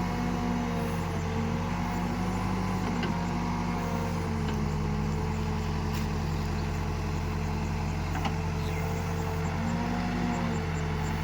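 Diesel engine of a backhoe loader running steadily under hydraulic load while digging and loading mud. Its note dips briefly and recovers a few times.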